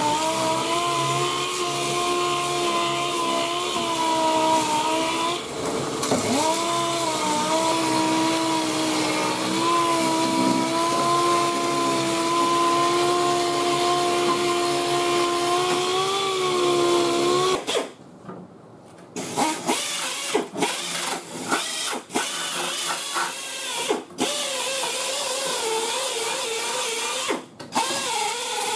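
Pneumatic sander whining steadily as it sands rusty engine-bay sheet metal, its pitch dipping briefly about six seconds in; it cuts off suddenly about 17 seconds in. After a short pause, a small air tool with an abrasive disc runs in short start-stop bursts.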